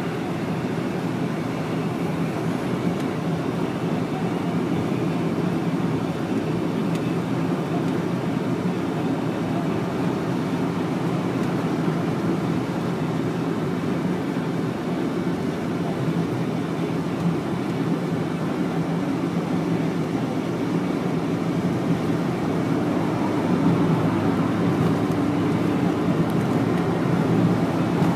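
Steady road noise inside a moving car's cabin at motorway speed: tyre and engine drone, a little louder near the end.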